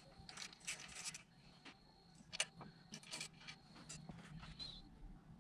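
Faint scattered clicks and rustles of small metal parts and hand tools being handled, with a few sharper clicks in the middle.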